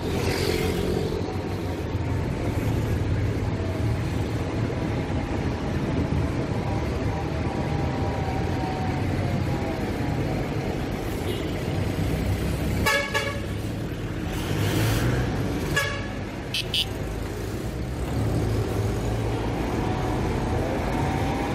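Busy city road traffic: a steady rumble of engines and tyres, with vehicles passing close by. A vehicle horn toots briefly about 13 s in, and there are two more short toots around 17 s.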